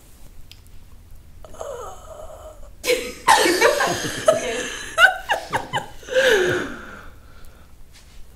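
Breathless, wheezy laughter in several bouts, starting about a second and a half in and loudest in the middle.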